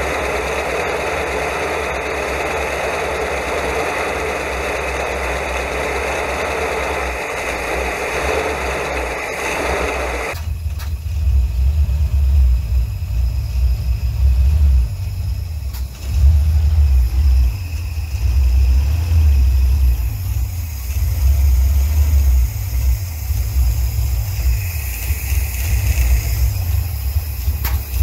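1969 Ford Econoline 200's V8 running with its valve covers off and the rocker arms exposed, just after an overhaul. About ten seconds in the sound changes abruptly to a heavier, uneven low rumble that swells and fades.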